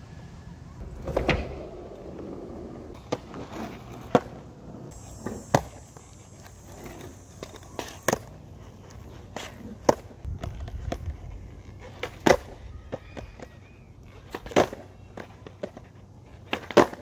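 Skateboard on concrete: a string of sharp wooden clacks as the tail pops and the board and wheels slap back down during ollie attempts, roughly every one to two seconds, with a low rumble of the wheels rolling in between.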